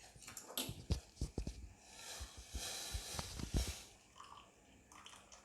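Herbal leaf decoction being strained from a pan into a cup: a few light knocks and clinks of the pan and strainer, with a short stretch of pouring liquid in the middle, dying away after about four seconds.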